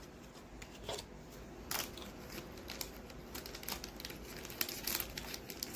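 Hands handling trading cards and plastic packaging: scattered crinkling and light clicks, a few of them sharper.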